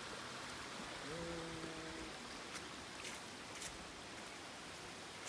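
Steady hiss of a shallow creek flowing. About a second in, a person's voice sounds briefly, and a few faint ticks come later.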